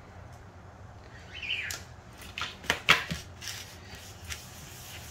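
Kitchen handling sounds from breading fish in pinol on paper plates: a brief scrape, then a quick run of sharp clicks and knocks about two to three seconds in, the loudest near three seconds, as the coated fish is pressed, lifted and moved between plates, over a steady low hum.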